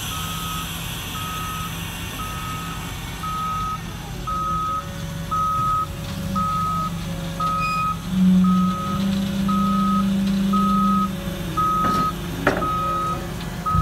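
Backup alarm on a Carlson asphalt paver beeping steadily and evenly, over the machine's engine running, which grows louder about halfway through. Two sharp clanks come near the end.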